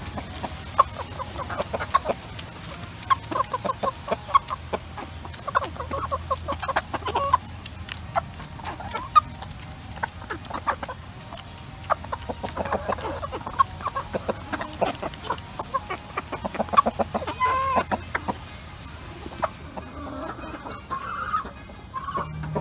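Chickens clucking: hens and a rooster giving runs of short, quick clucks, over and over.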